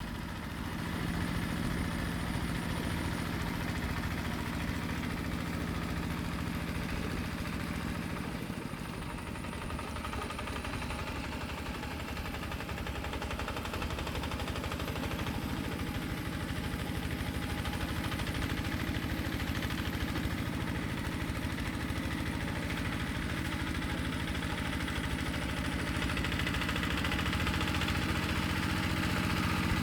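Tractor engine running steadily with a low, even hum, its pitch shifting about eight seconds in and again near the end.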